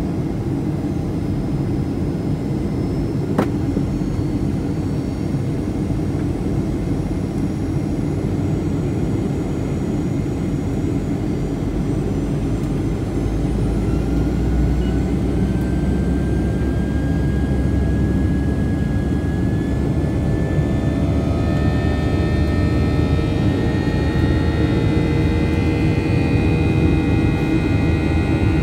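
Cabin noise of a Boeing 737-800 in its climb, heard from a window seat beside its CFM56-7B engine: a steady deep rumble of engine and rushing air. About halfway a thin whine rises slowly, and later several higher whines join in as the sound grows a little louder.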